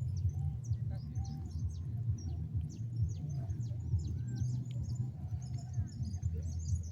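A chorus of birds chirping: many short, high, falling chirps, thickening near the end, over a steady low rumble.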